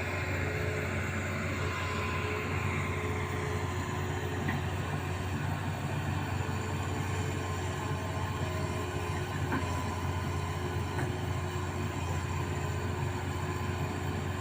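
Amphibious excavator's diesel engine running steadily with a low drone, a higher hiss that fades away about three seconds in.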